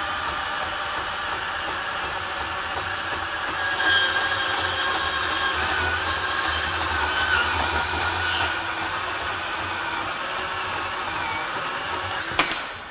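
Ridgid R8604 18V compact cordless band saw running steadily under load as its blade cuts through 1x2 metal tubing with a 1/8-inch wall. The saw stops near the end, followed by a sharp metallic clink.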